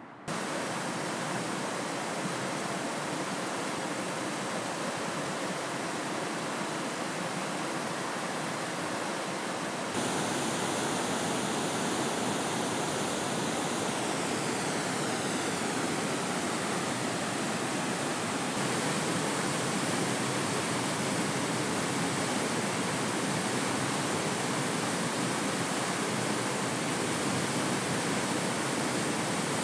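Steady rush of falling water, like a waterfall or cascading stream, with no wave rhythm. It cuts in abruptly and jumps louder about ten seconds in.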